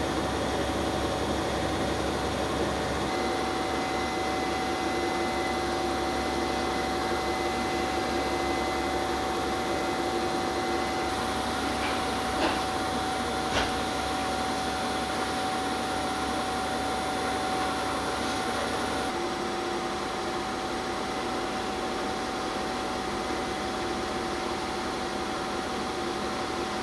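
Steady mechanical hum with a constant tone, broken only by two light clicks about a second apart midway.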